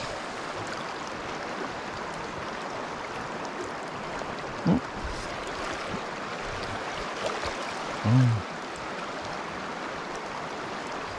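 Fast, choppy river current rushing steadily. A short hum of a man's voice comes about eight seconds in.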